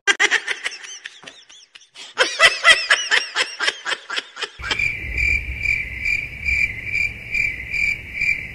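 Quick, high-pitched laughter in two runs, then from about halfway a steady, even chirping of crickets, pulsing about three times a second, that starts abruptly.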